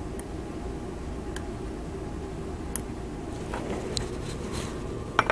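Steady low room hum with a few faint, scattered clicks and taps as a small circuit board is handled on a workbench.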